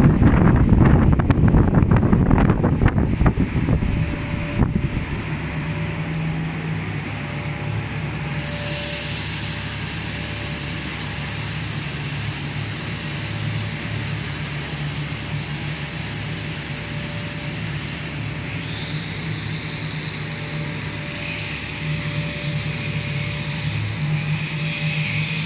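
A cast stretch film production line on its trial run: its extruder drive motors and winder make a steady mechanical hum. A higher hiss joins about eight seconds in. Wind buffets the microphone for the first few seconds.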